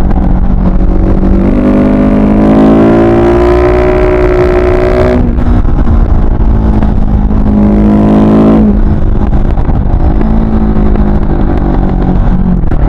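Husqvarna 701 supermoto's single-cylinder engine being revved hard: it pulls up in pitch for a few seconds, cuts off suddenly about five seconds in, holds a steady note, drops away near nine seconds, then pulls up again near the end.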